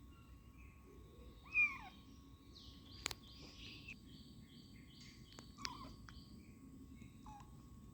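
Kitten mewing: one loud high mew that rises and falls, about one and a half seconds in, then a couple of fainter mews later. Faint high chirps and a few small clicks come between them.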